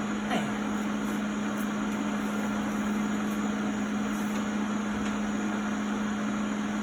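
Steady mechanical hum with fan noise: one low tone held without change, over an even rushing hiss.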